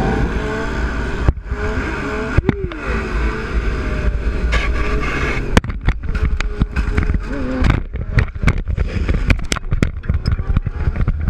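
Motorcycle engines running and revving, the pitch swinging up and down in the first few seconds. From about halfway on, a rapid run of sharp clicks and knocks sounds over the engine noise.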